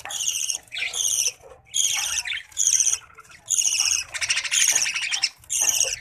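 Budgerigar chicks squawking harshly, over and over, about once a second, as they are handled out of the nest.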